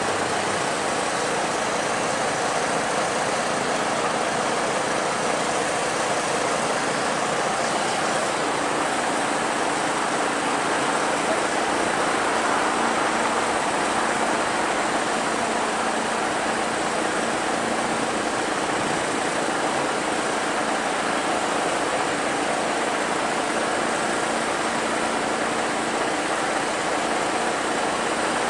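Truck-mounted crane's engine running steadily while it holds a heavy load on its hook.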